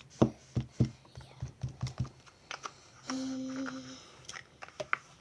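Slime squelching and popping in a run of quick, sticky clicks as hand cream is kneaded into it. About three seconds in, a single note is hummed for about a second.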